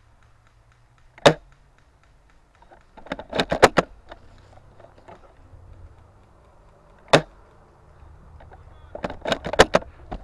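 Airsoft gunfire: two sharp single cracks a few seconds apart, each followed about two seconds later by a quick run of sharp clicks.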